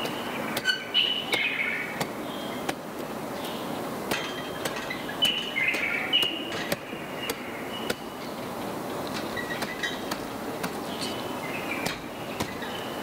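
Quilts being beaten with sticks: sharp thwacks at uneven intervals, with birds chirping between the strokes.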